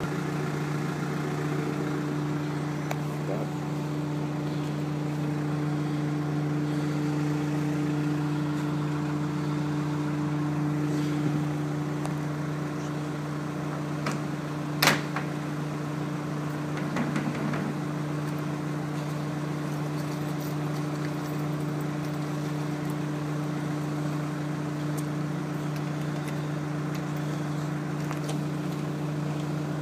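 A steady low engine hum, with one sharp knock about halfway through and a few faint clicks around it, from the plastic lid and gravity-lock catch of a wheelie bin being handled.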